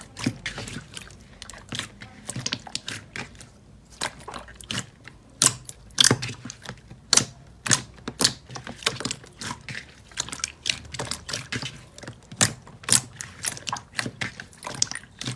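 Slime being squeezed and worked by hand, giving irregular sharp clicks and pops, several a second.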